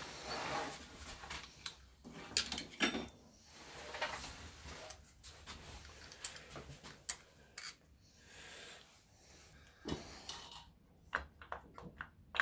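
Scattered metallic clicks, clinks and scrapes of screwdrivers and Honda CB750 clutch parts being pried and pulled by hand, with a few sharper clicks in the second half.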